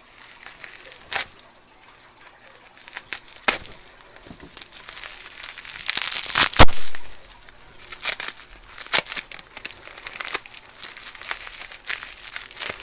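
Bubble wrap crinkling and crackling as it is unwrapped by hand, in irregular bursts with the loudest a little past halfway.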